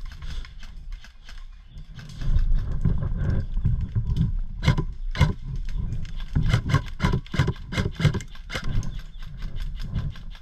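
Footsteps and jostling gear making irregular knocks and thuds, over a rumble of the camera moving, as an airsoft player walks and jogs. The knocks come thickest in the middle and later part.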